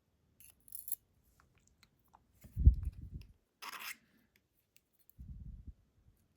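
Small metal lock parts and tools being handled while the pins are taken out of a Yale 500 lock: brief scraping sounds and a couple of dull bumps.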